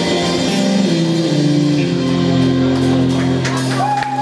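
Live rock band playing: electric guitars, bass guitar and drum kit. Near the end the low notes drop out and a single high note is held and bent.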